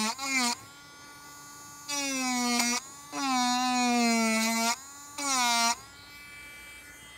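Dremel Stylo rotary tool whining in four short bursts as its 3 mm cutter carves into the wooden bowl rim, the pitch sagging a little at the start of each burst.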